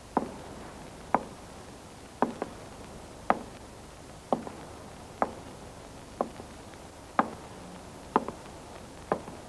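Slow footsteps of hard-soled shoes on a paved sidewalk, about one step a second, some steps landing as a quick double strike.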